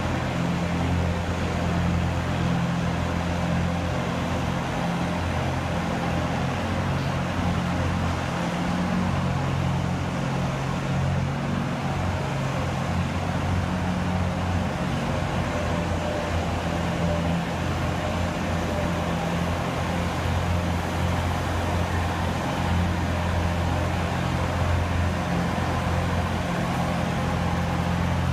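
Ice resurfacing machine's engine running steadily as it drives over the ice, a low hum whose pitch shifts slightly now and then.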